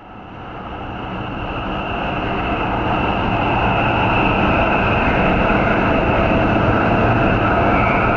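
Subway train running through a tunnel: a steady rumble with a high whine over it, fading in over the first few seconds.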